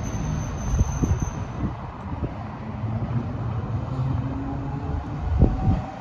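Vintage Porto heritage tram approaching on the street track, still out of sight: a low rumble with motor hum and a few heavy knocks, about a second in and again near the end.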